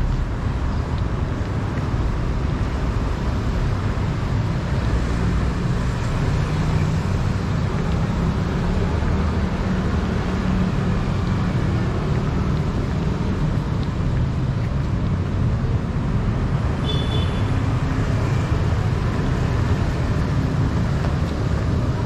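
Steady city street ambience: a continuous rumble of road traffic with no break. A short high-pitched tone sounds briefly about three-quarters of the way through.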